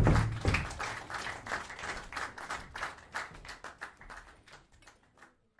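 Theatre audience applauding, with a brief loud burst right at the start; the clapping thins out and dies away near the end.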